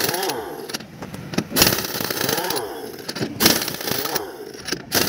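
Pneumatic impact wrench on a tractor's rear-wheel hub nuts, run in short repeated bursts about a second apart, its air motor whining up and down in pitch while it hammers.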